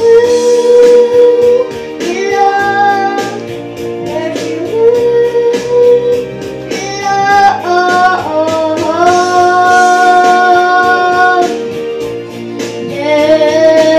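A boy singing a pop ballad through a handheld microphone, holding several long notes, over instrumental accompaniment with a steady beat.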